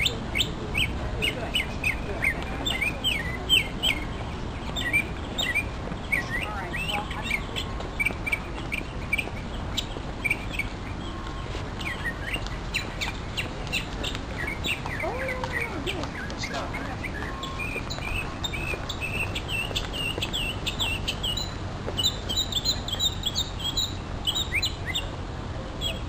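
A songbird singing on and on: quick runs of high chirps and short trills, one after another with hardly a pause.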